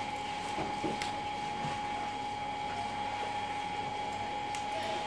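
A steady machine hum holding one constant tone, with a few faint ticks and rustles.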